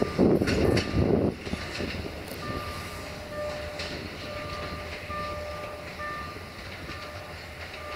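Diesel-hauled passenger train (060-DA locomotive and coaches) rolling away. Its wheels clatter loudly over the rail joints for the first second and a half as the last coach passes, then a steadier, quieter rumble follows, with a faint squeal that comes and goes as the wheels take the curve.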